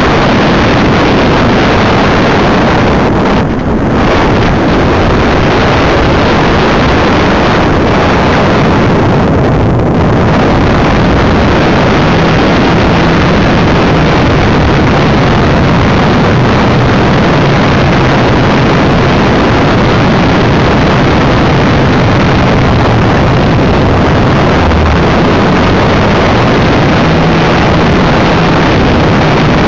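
Electric motor and propeller of an EasyGlider RC motor glider running in flight. Heavy wind rush on the onboard microphone gives a loud, steady noise with a low hum beneath it.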